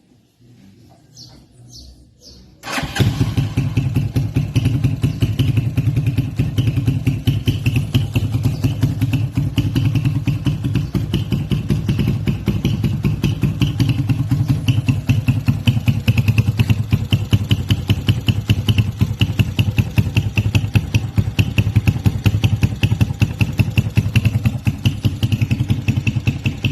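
Súper Gato 300 cc motorcycle engine starting up about three seconds in, then running steadily with a rapid, even firing beat.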